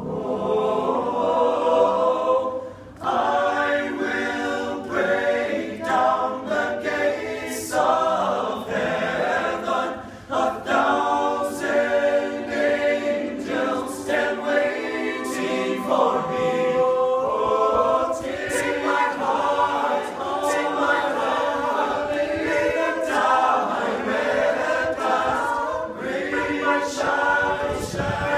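All-male a cappella group singing a song in close harmony, several voices together with no instruments, with brief breaks between phrases about three and ten seconds in.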